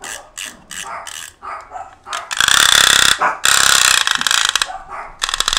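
A dog barking in short repeated bursts, with a loud harsh stretch about halfway through. Near the end, a wind-up chattering-teeth toy clacks rapidly.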